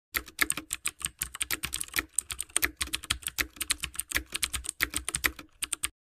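Rapid, irregular keyboard typing, about ten keystroke clicks a second, stopping abruptly near the end; a typing sound effect for a text reveal.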